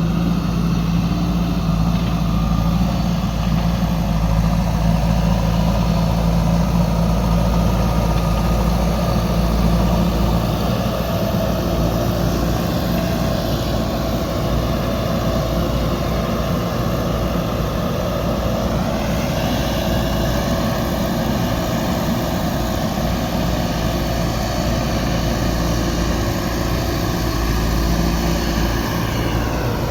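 JCB 3DX backhoe loader's diesel engine running steadily as it works. Its note shifts in pitch a couple of times, about halfway through and again near the end.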